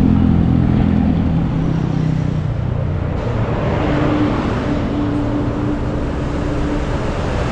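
Riding a motor scooter in town traffic: wind on the microphone and road noise. An engine hum falls in pitch over the first couple of seconds, and a steady hum comes in around the middle.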